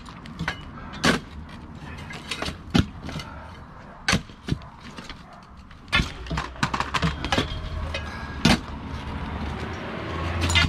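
Sharp metal clanks and clicks from a Northwest Quik Pull lever post puller and its chain being worked on a steel fence post. There are about five loud clanks a second or two apart, with a quick run of lighter clicks in between. The post, held in a large concrete footing, is not coming out.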